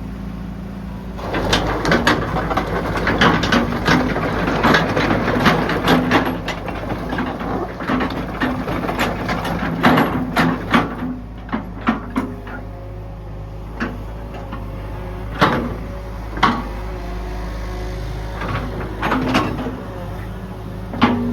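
Hitachi EX120-5 excavator's diesel engine running steadily, with many sharp metallic knocks and clanks over it, thickest in the first half and more scattered later.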